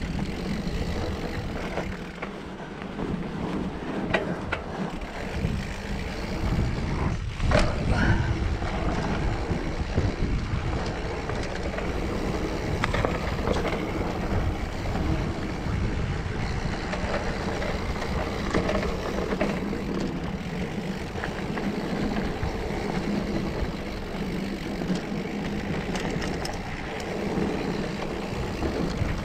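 Mountain bike rolling over dirt singletrack, recorded from a handlebar-mounted camera: a continuous rough rush of tyre noise and wind on the microphone, with a cluster of sharp knocks and rattles about seven to eight seconds in.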